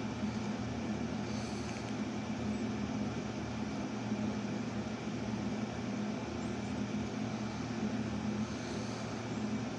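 Steady low mechanical hum, as of an appliance running, with a faint high whine above it.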